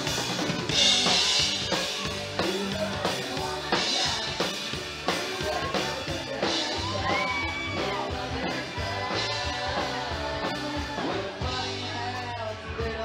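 Live country band playing, led by a full drum kit with a steady snare and bass-drum beat and several cymbal crashes, with a melodic line sliding in pitch over the band in the middle.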